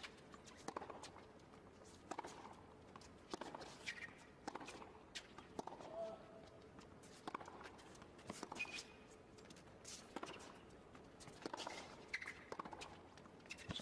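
Tennis rally on a hard court: racket strikes on the ball and ball bounces, a sharp knock every half-second to second, with a few short squeaks of shoes on the court.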